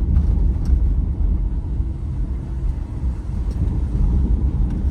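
Road noise of a car heard from inside the cabin while driving: a steady low rumble of tyres and engine, with a few faint clicks and rattles.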